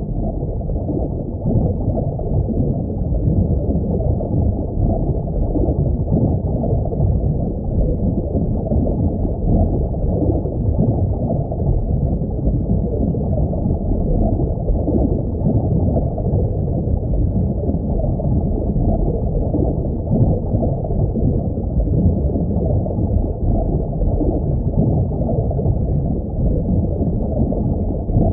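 Underwater ambience sound effect: a steady, muffled rumble and wash of water with no high sounds at all.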